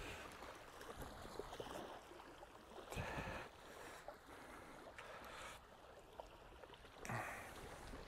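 Faint wind and small waves lapping at the water's edge, with short louder bursts of noise about three and seven seconds in.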